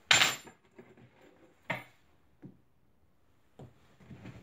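Steel frame rods clinking against each other as they are handled. There is a loud clink right at the start, a second just under two seconds in, then a few fainter clicks and taps.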